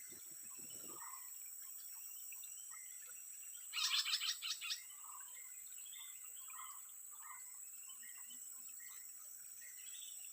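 A bird's rapid chattering call, about seven quick notes within a second, about four seconds in. Underneath are soft chirps repeating about once a second and a steady high-pitched whine.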